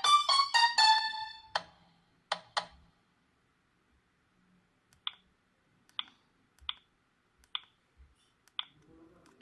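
A Sagem myW-8 phone's polyphonic ringtone plays out its last notes and fades in the first second and a half, then the phone's keys are pressed: three short clicks close together, a pause, and then a click about once a second.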